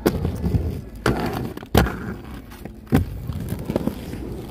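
Aggressive inline skate wheels rolling on concrete paving, with several sharp clacks of the skates striking the ground. The loudest comes about two seconds in.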